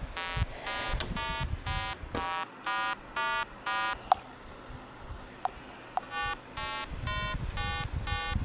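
Chiptune-style electronic beeps from an 8-bit cartoon soundtrack: short buzzy notes stepping between pitches, about three a second. They stop for about two and a half seconds in the middle, where a few single clicks sound, then start again.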